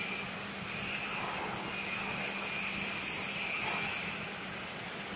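Hydraulic power pack of a vertical baling press running: the electric motor and pump give a steady hum with a high whine over it that swells and fades, easing slightly near the end.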